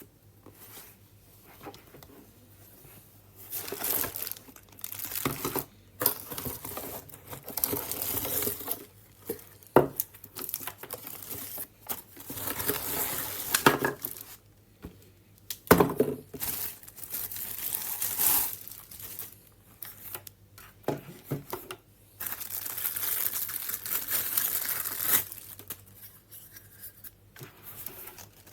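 Packaging being torn and crinkled in irregular bursts, with a few sharp knocks.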